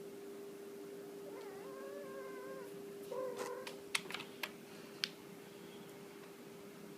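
Domestic cat meowing twice, a drawn-out meow of about a second and then a shorter, louder one, followed by a few sharp clicks or taps. A steady hum runs underneath.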